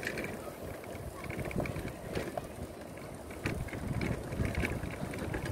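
Go-kart rolling along a paved road: a steady low rumble from the wheels with scattered knocks and rattles.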